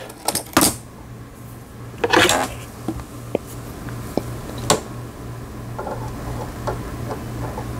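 Scattered sharp clicks and light knocks of a screwdriver and small parts being handled at a sewing machine, with a brief rattle about two seconds in, over a steady low hum.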